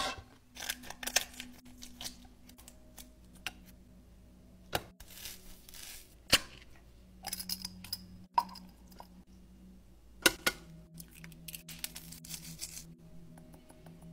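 Food being put into a ceramic bowl: scattered sharp clinks and taps of a glass jar, fork and spoon against the bowl, with short rustles and soft plops of food. A faint steady hum runs underneath.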